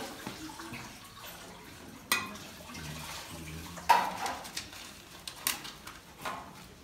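Water splashing and trickling as a metal ladle pours it over banknotes in a woven bamboo basket, with a few sharp clinks and knocks of the ladle, the loudest about four seconds in.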